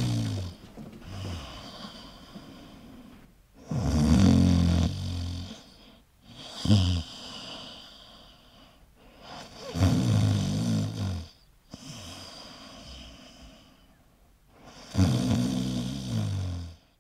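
A person snoring: loud snores about every five to six seconds, with quieter breathing between them.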